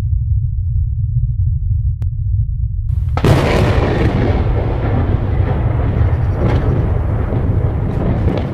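Logo intro sound effect: a deep steady rumble, then about three seconds in a sudden blast that carries on as loud crackling noise with scattered sharp cracks.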